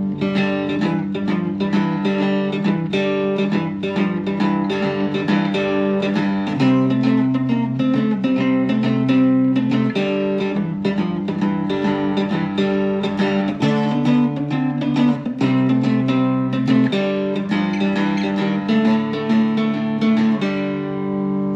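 Three-string cigar box guitar with a floating bridge, strung .042, .032 and a plain .022, played continuously: picked notes over a ringing low drone, with the bass notes changing several times.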